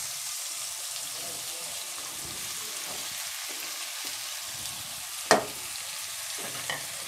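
Sliced onions sizzling steadily in hot mustard oil in a kadai. One sharp knock sounds about five seconds in, with a couple of fainter clicks near the end.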